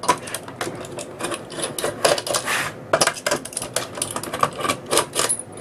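Quick irregular clicks, taps and scrapes of fingers working the metal bottom plate of a USB postal scale, shifting it against the case as it comes loose.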